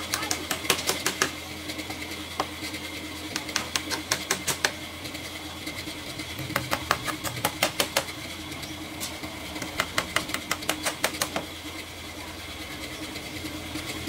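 Bursts of rapid, sharp tapping, about six to eight taps a second, in four runs of about a second each, over a steady faint hum.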